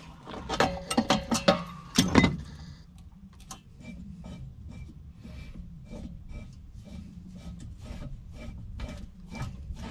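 A wrench knocking and clinking on the metal fitting of an outdoor well tank, then a long run of faint, evenly spaced clicks as the tank is unscrewed from its pipe.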